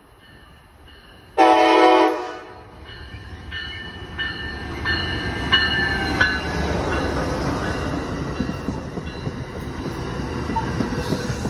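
Amtrak Pacific Surfliner train led by a Siemens Charger locomotive sounds one short, loud horn blast about a second in. Its bell then rings repeatedly as it pulls into the station, and the locomotive and bilevel passenger cars rumble past with steady wheel and rail noise.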